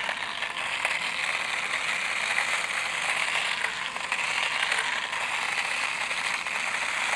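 Toastmaster immersion blender running steadily in a stainless steel pot of iced brine, its motor whirring and the blade churning the water to dissolve the salt and mix the spices evenly.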